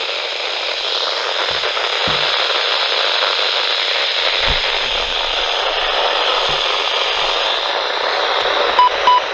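Steady static hiss from a NOAA weather radio receiver between broadcast segments, with a few faint knocks. Near the end come about three short, quick beeps at one pitch.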